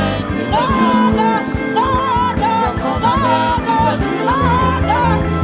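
Live gospel worship music: a voice sings a wavering melody line over steady bass notes and a drum beat.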